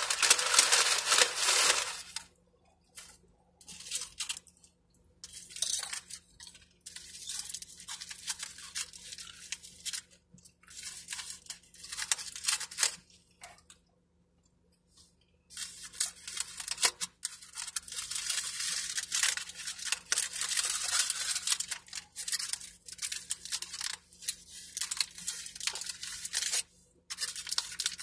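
Close-up eating sounds: tortilla chips crunched and chewed in irregular bursts with short pauses. The burrito's foil wrapper crinkles near the end.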